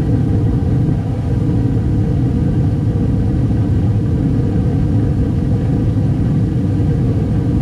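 2012 Bryant Legacy Line gas furnace running on its first start-up of the heating season: a loud, steady rumble of burners and fans.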